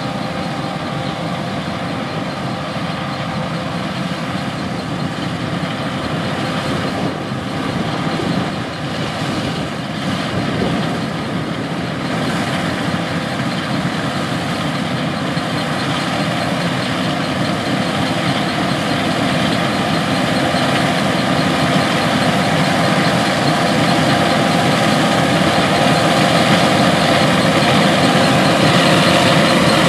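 John Deere S780 combine harvesting wheat with its HD40R draper head: a steady, loud machine drone of engine and threshing drives with several held tones in it. It grows gradually louder as the combine comes closer.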